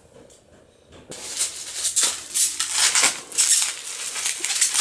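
Plastic wrapping crinkling and rustling as it is handled and pulled open around a small diecast car, starting about a second in as a continuous crackle.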